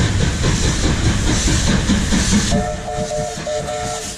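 Hotham Valley Railway steam locomotive running close by, a steady rumble and hiss; a bit over halfway in, its whistle sounds a chord in a few short broken blasts.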